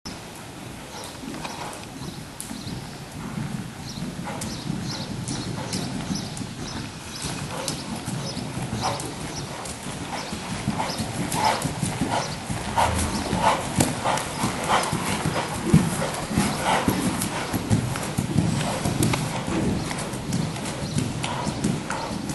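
Hoofbeats of a KWPN (Dutch Warmblood) gelding trotting on sand arena footing: a steady, regular rhythm of muffled thuds with sharper clicks, louder in the second half as the horse comes nearer.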